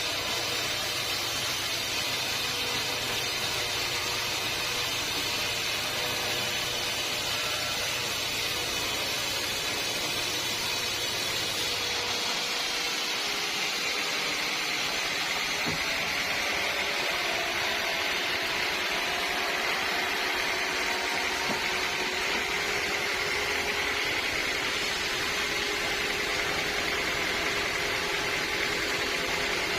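Sawmill machinery running steadily with a constant high machine whine. A low hum underneath stops about twelve seconds in.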